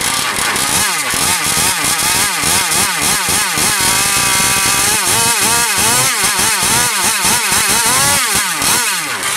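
Small petrol two-stroke engine of a radio-controlled model racing boat running out of the water, revved up and down over and over, its pitch rising and falling about twice a second.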